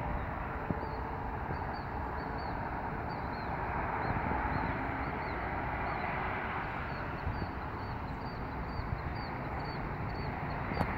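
A small bird chirping repeatedly, short falling chirps about two to three a second, over a steady outdoor rushing background.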